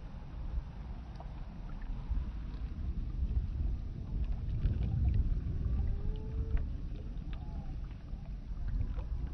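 Wind buffeting the microphone: an uneven low rumble that swells about halfway through, with faint distant calls and small ticks over it.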